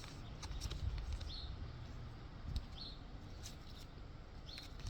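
A bird chirping in short calls about every second and a half, over a low steady rumble of outdoor background, with a few faint clicks.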